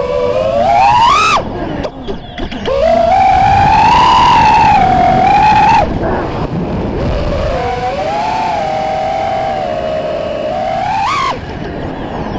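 FPV quadcopter's motors and propellers whining, heard close up on the onboard camera. The pitch swings up and down with the throttle. Three times, about a second and a half in, about six seconds in and near the end, it climbs sharply and then cuts off abruptly as the throttle is chopped.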